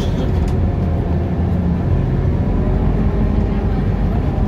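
Cabin sound of a Scania articulated bus underway in traffic: a steady low rumble of engine and road.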